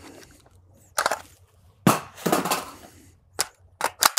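Metallic clicks and clacks of an AR-15's bolt and charging handle being worked by hand while a spent brass case is pinched in the ejection port to set up a stovepipe malfunction. There are several sharp clacks, the loudest just under two seconds in, followed by a short rattle.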